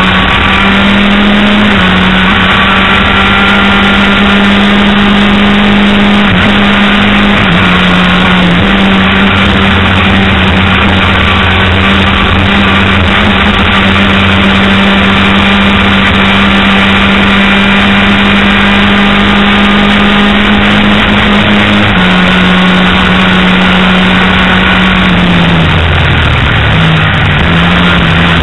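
Onboard sound of a race vehicle's engine running hard at high revs through a lap, its pitch holding near-steady with small steps, over heavy wind rush. Near the end the pitch drops sharply for a moment, then climbs again.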